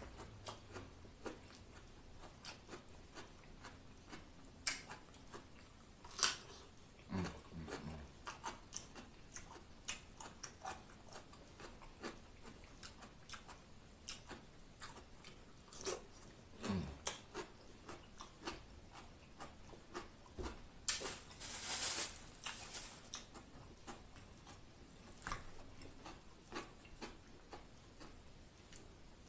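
Quiet chewing and crunching of raw cucumber slices dipped in seafood boil sauce, with many small wet mouth clicks and a longer crunchy, noisy stretch about 21 seconds in.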